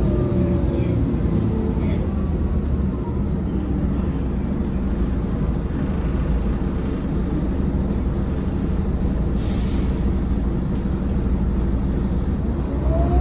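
Mercedes-Benz O500LE city bus heard from inside the cabin while under way: a steady low engine and road rumble. About nine seconds in there is a brief hiss. Near the end the engine note rises and grows louder as the bus accelerates.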